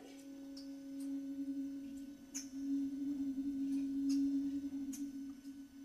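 A single steady low tone held throughout, with a fainter tone an octave above it and a few faint ticks.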